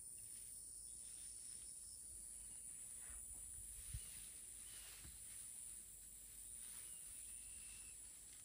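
Quiet outdoor garden ambience with a steady faint high hiss, soft rustling of plants and steps as vegetables are picked by hand, and one soft thump just before four seconds in.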